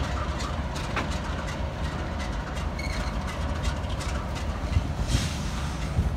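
Freight train rolling past below: loaded gondolas and coil cars running by with a steady low rumble and scattered clicks of wheels on the rails.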